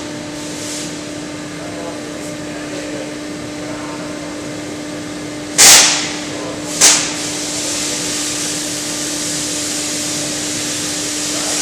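Two sharp blasts of compressed air, a little over halfway and about a second apart, the first the louder, then a steady hiss of air, over a constant machine hum.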